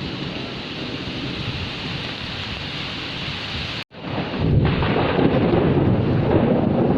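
Heavy rain falling steadily with thunder rumbling. About four seconds in the sound cuts out for an instant, then comes back louder and deeper, with rolling thunder under the rain.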